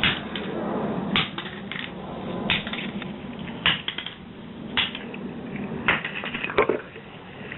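Sharp, irregular clicks and clacks of hard plastic and metal parts as an old PowerShot digital camera is broken apart, about one hit or snap a second.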